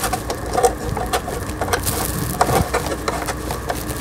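Irregular small clicks and taps of metal and plastic as the snap-on presser foot of a Janome-made household sewing machine is handled at the needle.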